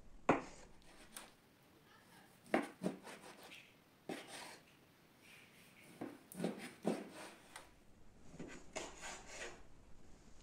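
Kitchen knife slicing through raw chicken breast, each cut ending in a soft knock of the blade on the cutting board, in a series of separate strokes, some in quick pairs.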